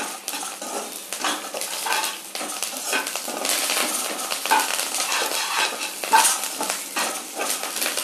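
Slotted stainless-steel spatula stirring and scraping dry-roasting grated coconut, coriander seeds and dried red chillies around a stainless-steel kadai on a low flame: rapid, irregular rasping scrapes of metal on metal through the dry, granular mixture, several strokes a second.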